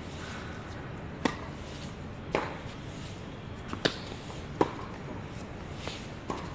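Tennis ball being hit back and forth in a doubles rally: a series of sharp pops from racket strings and court bounces, roughly a second apart, over a steady background hiss.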